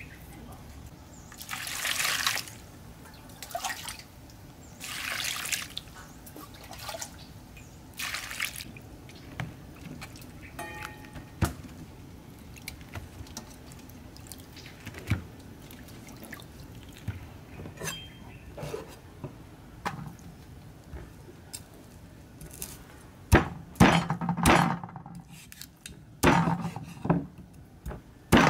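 Water splashing and dripping in brief bursts as vegetables are cleaned. Toward the end comes a run of sharp, heavy cleaver chops through raw chicken on a thick wooden chopping block.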